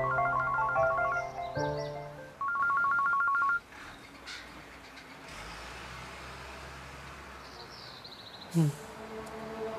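Background music, then an electronic telephone ringtone: a rapid trilling ring, heard twice, the second burst louder, starting about two and a half seconds in and stopping abruptly about a second later. A quiet stretch follows, broken by one short vocal sound near the end before the music returns.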